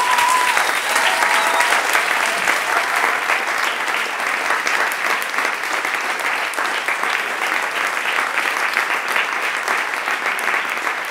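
An audience applauding, dense steady clapping from many hands that eases slightly toward the end.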